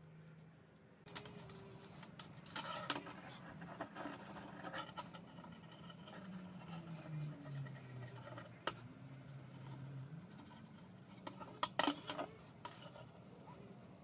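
A thin metal rod and wire being handled and twisted together on a wooden tabletop: scattered clicks, taps and light scraping, with a cluster of sharper clicks near the end.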